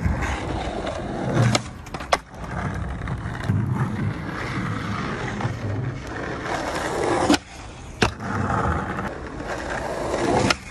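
Skateboard wheels rolling over rough stone paving, broken by about five sharp clacks of the board hitting the ground. The loudest two come close together a little past the middle.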